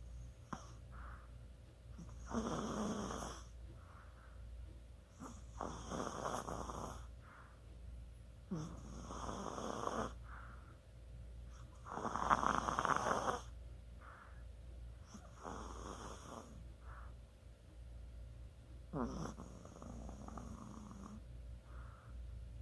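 A Chihuahua snoring in its sleep: slow, even snoring breaths, one about every three and a half seconds, six in all, the loudest about twelve seconds in.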